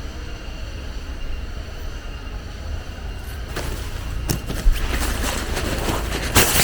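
Camping gear being handled, most likely while pitching a tent: rustling with several sharp clicks and knocks from about halfway on, over a steady low rumble.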